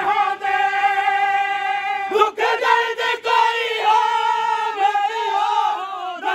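A group of men chanting a noha, a Shia lament, in unison without instruments, holding long steady notes. A few sharp slaps cut in, about two and three seconds in.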